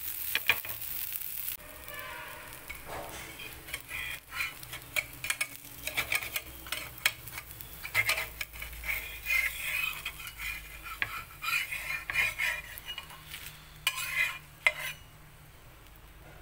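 Dosa sizzling in oil on a hot griddle, the hiss strongest in the first second or so. A metal spatula then scrapes again and again across the griddle to loosen and fold the dosa, stopping near the end.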